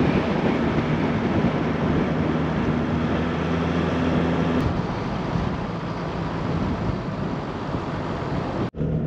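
Toyota Land Cruiser HDJ100's 4.2-litre straight-six turbodiesel pulling uphill, heard from outside the vehicle under a steady rush of wind and tyre noise. The engine note changes about halfway through, and the sound drops out for a moment near the end.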